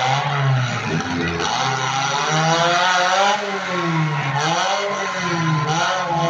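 Demolition-derby compact car engines revving, their pitch rising and falling in slow swells of a second or two, over a steady noisy background.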